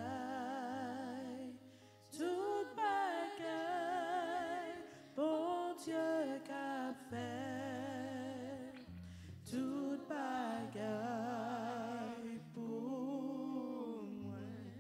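Slow worship chorus: a voice singing long held notes with vibrato, phrase by phrase, over sustained low keyboard bass notes that change every second or two.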